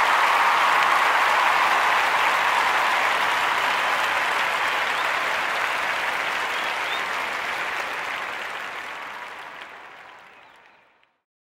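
Crowd applause, a dense steady clapping that fades out gradually over the last few seconds and stops shortly before the end.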